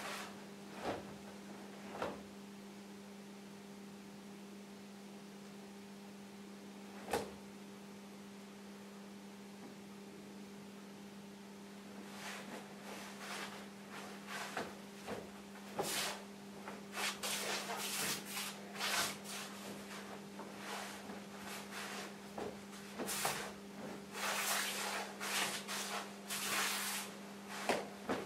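Cloth of a kung fu uniform swishing and rustling with fast arm strikes and footwork during a Wing Tsun Biu Tze form, over a steady electrical hum. There are a few sharp clicks in the first seven seconds. The swishes come thick and fast from about halfway through.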